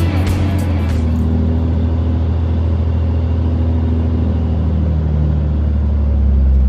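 A vehicle's engine and road noise make a steady low drone, with its tones shifting down a little in pitch. It grows slightly louder just before it cuts off suddenly. Music fades out in the first second.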